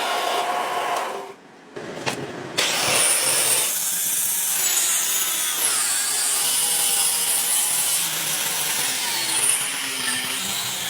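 A tool working the steel blade with a steady sawing, grinding noise. The noise breaks off suddenly about a second and a half in, then resumes.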